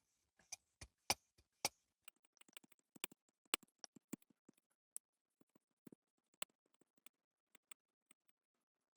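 Hand-held shock pump being stroked to add air to a mountain bike's rear air shock, heard as a series of sharp, irregularly spaced clicks and ticks, loudest in the first two seconds.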